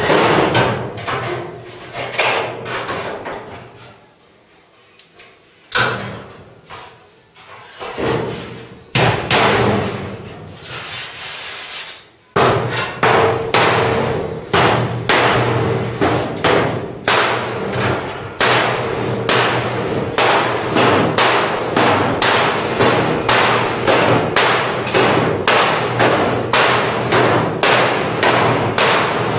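Mallet striking a steel repair panel on a Ford Cortina Mk3's front end, knocking it into line. A few spaced blows come first, then a steady run of about two blows a second.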